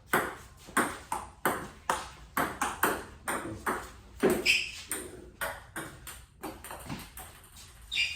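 Table tennis ball clicking back and forth between paddles and table in a continuous rally, about two to three sharp hits a second.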